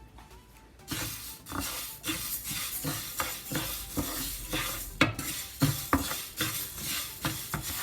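A spoon or spatula stirring and scraping moong dal lentils in a pan as they roast. The dal rattles and hisses against the metal in irregular strokes that begin about a second in.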